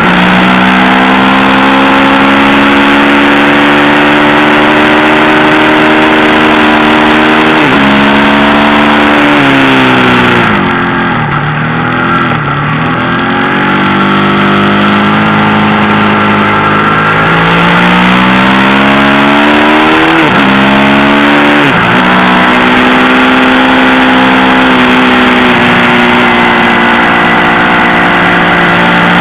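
Ducati motorcycle engine at racing speed, pulling up through the gears: its pitch climbs and then drops at each upshift. About a third of the way in it slows for a corner with falling revs and quick throttle blips on the downshifts, then pulls hard again with two quick upshifts. Wind rushes over the onboard microphone throughout.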